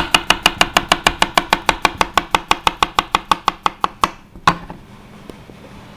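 Chef's knife rapidly slicing a cucumber, the blade knocking the cutting board about eight times a second. The slicing stops about four seconds in, with one last cut shortly after.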